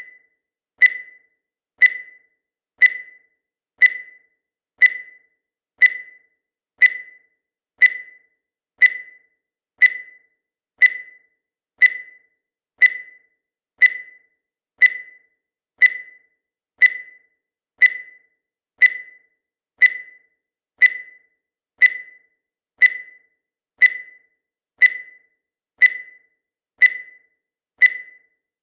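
Countdown timer sound effect: a short, high beep once every second, each dying away quickly, steady and evenly spaced.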